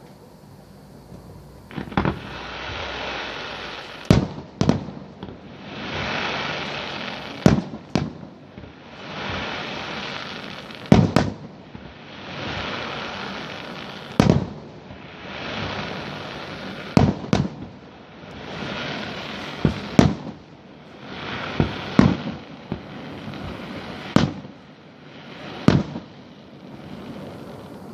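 Fireworks going off: sharp bangs, often two in quick succession, every two to three seconds, with swells of hissing between them.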